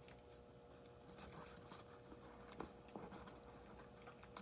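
Near silence: room tone with a faint steady hum and a few soft taps near the middle.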